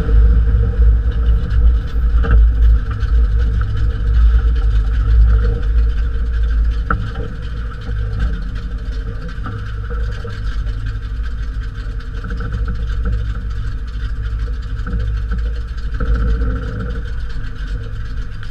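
Jeep CJ5 rolling to a stop and then idling, heard from under the vehicle by the rear suspension: a low engine rumble with road noise that drops to a quieter, steadier idle about seven seconds in.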